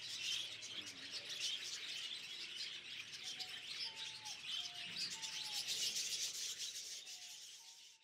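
A dense chorus of many birds chirping and twittering, with a few short, lower whistled notes from about three seconds in. The chorus fades out near the end.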